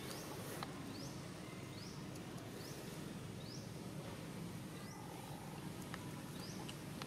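Outdoor ambience: a steady low rumble under a short, high, rising chirp from a small creature, repeated every second or so, with a few faint clicks.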